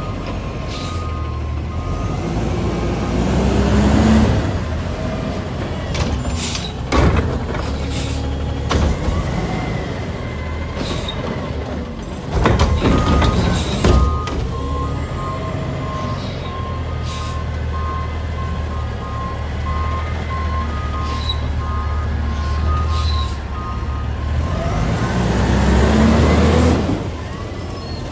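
Front-loading garbage truck's diesel engine running, revving up twice as it drives the hydraulics, with several loud metallic bangs and hisses. A beeping alarm repeats about twice a second through the middle stretch.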